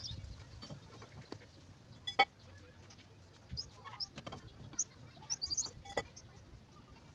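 Sharp metallic clinks of tools and parts being handled. The two loudest, about two seconds in and near the end, ring briefly. Short high bird chirps run in the background.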